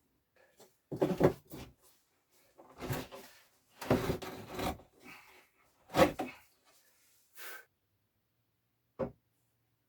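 Wooden kitchen cupboard being handled and fitted into place: a series of knocks and scrapes of wood, several in quick bunches, the loudest about a second in, around four seconds and around six seconds, and a single sharp knock near the end.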